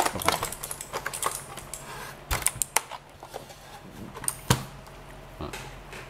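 RuYi K-26 mechanical keyboard being handled and turned over: a quick run of plastic clicks and rattles from the keycaps and case, then a few sharper knocks about two and a half and four and a half seconds in as it is set down and moved on the desk.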